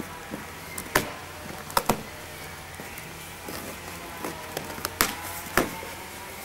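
Packing tape being torn off a cardboard box and the cardboard flaps pulled open, with a few short sharp snaps and rustling of cardboard.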